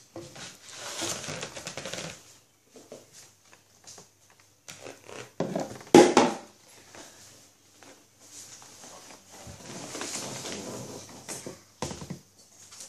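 Irregular rustling and handling noises as objects are moved about close by, with one sharp knock about six seconds in.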